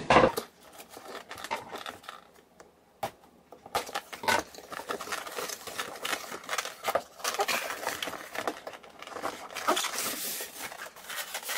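A cardboard box being opened by hand: a sharp scissor snip or tape cut at the very start, then cardboard flaps and the box itself rustling and scraping in irregular bursts as it is pulled open and lifted away. The handling gets denser about four seconds in.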